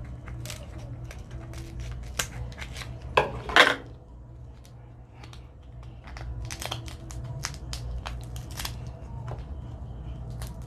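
Dungeness crab shell being cracked and broken apart: a run of sharp cracks and snaps, with one loud crunching break about three seconds in.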